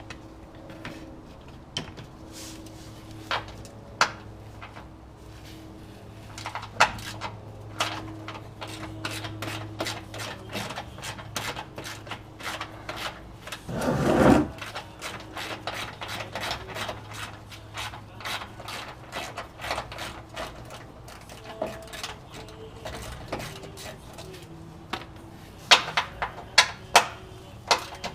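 Hand tools at work on the plastic clips and small bolts of a car's under tray: scattered clicks and knocks from a ratchet and a flathead screwdriver, and rubbing on plastic. There is a louder scraping burst about halfway through, and a quick run of sharp clicks near the end.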